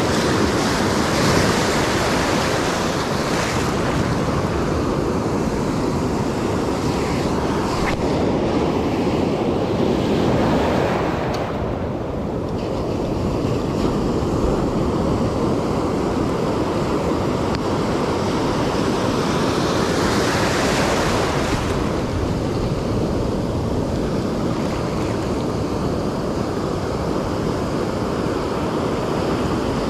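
Ocean surf breaking and washing up the beach in a steady rush that swells louder a few times as waves come in, with wind rumbling on the microphone.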